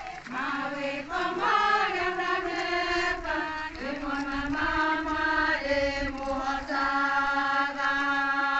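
A group of women singing a chant together as they walk, holding long notes that step from one pitch to the next.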